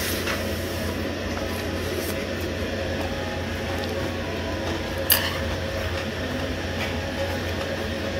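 Steady machine hum of the room, with one sharp click, like a utensil on a dish, about five seconds in.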